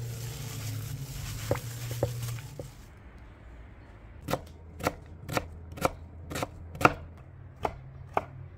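Kitchen knife chopping on a wooden cutting board: a run of eight sharp strokes at about two a second, starting about four seconds in.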